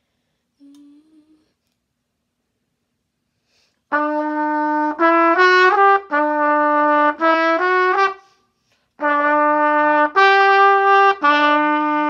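A solo brass instrument playing a melody of held notes. One phrase starts about four seconds in, a brief pause follows, and a second phrase begins near nine seconds.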